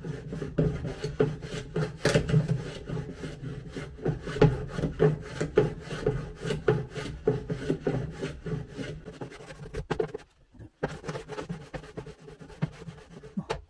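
Wood being rubbed down by hand on a wooden stair tread, in quick back-and-forth strokes of about three a second, with a short pause about ten seconds in.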